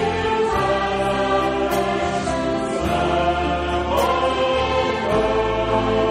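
A choir singing a hymn: slow, sustained chords that change about once a second over a low held bass.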